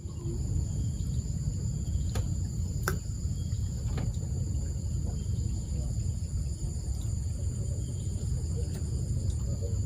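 Insects, likely crickets, chirping in a steady high-pitched drone over a low, steady rumble, with a few sharp clicks about two, three and four seconds in.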